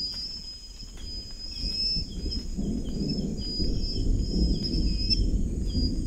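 Night rainforest ambience: a steady high insect trill with small chirps above it, over a low rumbling noise that builds from about a second in.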